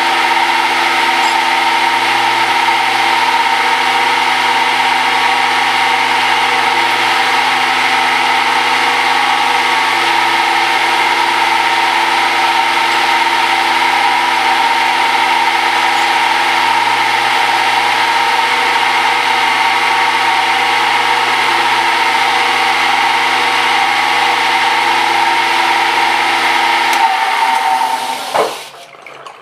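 A metal lathe runs steadily while machining a muzzle brake under flood coolant, a constant hum of motor and gearing over a hiss of coolant and cutting. Near the end the machine is switched off: its tone falls away as the spindle winds down and the sound drops sharply.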